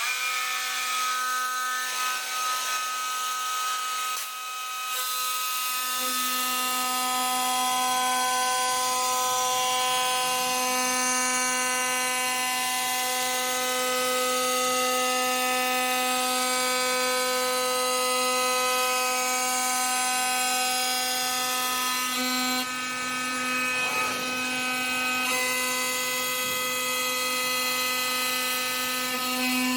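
CNC stone-working machine running with a steady whine made of several even tones, a fuller, lower machining noise joining about six seconds in.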